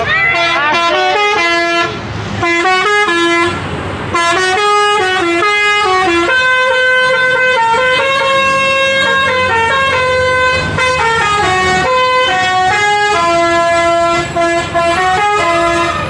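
Telolet 'basuri' multi-tone bus horn playing a loud tune: quick changing notes at first, then longer held notes, with short pauses between phrases.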